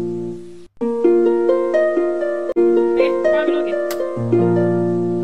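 Background music: a light plucked-string melody, briefly breaking off just under a second in before the tune restarts.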